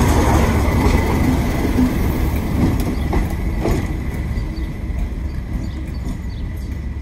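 Class 37 diesel-electric locomotive 37706 running past close by and pulling away, its English Electric V12 diesel engine giving a steady low drone that slowly fades as it moves off.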